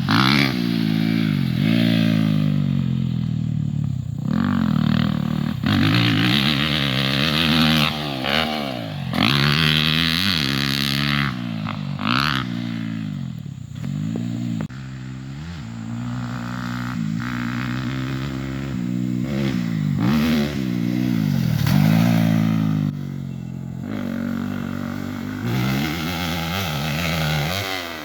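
Dirt bike engine revving hard, its pitch climbing and dropping back again and again every second or two as the throttle is worked and gears change.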